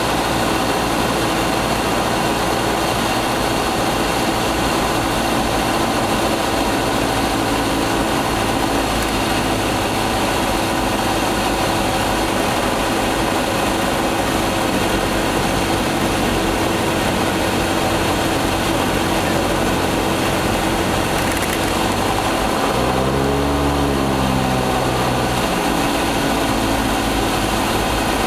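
Cessna 172's four-cylinder piston engine and propeller running steadily in cruise, heard from inside the cabin. A brief wavering low tone rises and falls for a few seconds shortly before the end.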